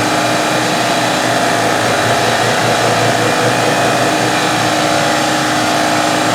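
Hobby CNC milling machine running its program, the spindle motor turning with a steady whine and even noise while it cuts a part.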